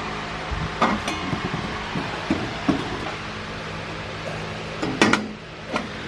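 Irregular metallic clinks and knocks, about half a dozen, the loudest a pair of sharp clanks about five seconds in, over a steady low hum. These are metal exhaust parts and tools being handled while a turbo exhaust pipe is test-fitted.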